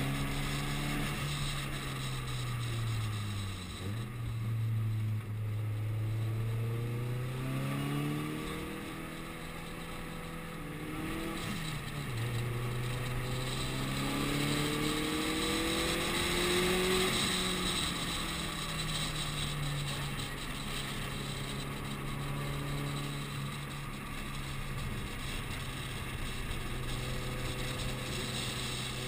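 Subaru WRX STI's turbocharged flat-four heard from inside the cabin, running hard on track: the engine note drops and climbs several times as the driver lifts, shifts and accelerates, with a sharp drop about twelve seconds in. A hiss of tyre and road noise on the wet surface runs underneath.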